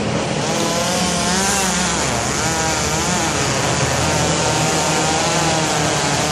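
Chainsaw running, its pitch rising and falling as it works, over the steady running of a larger engine.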